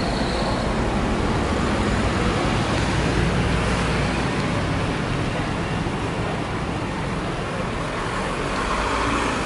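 Steady city street noise: a low rumble of road traffic, with no single sound standing out.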